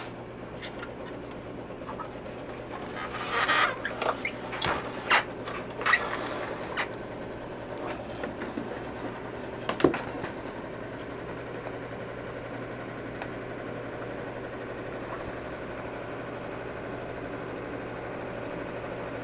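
Handling noises on an opened oscilloscope chassis: a run of irregular clicks and knocks for a few seconds, one sharper knock near the middle, then only a steady low hum.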